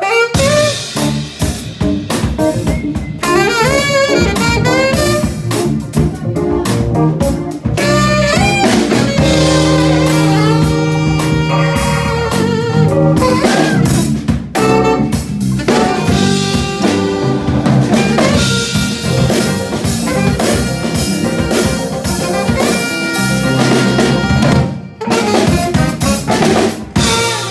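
Small live jazz band: a saxophone plays the melody over a drum kit, with guitar.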